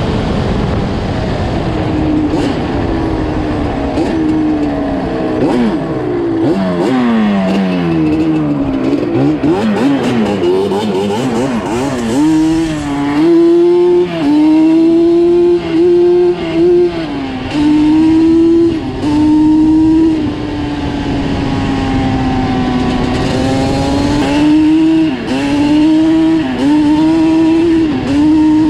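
Yamaha Banshee ATV's twin-cylinder two-stroke engine under way. Its pitch slides down and back up several times in the first half as the revs change. In the second half the revs are held fairly steady, broken by several short throttle cuts and pick-ups.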